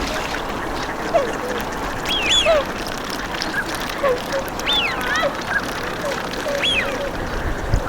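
A flock of Bewick's swans calling, with ducks among them. There are scattered short honks and quacks, and a high call that rises and falls every couple of seconds.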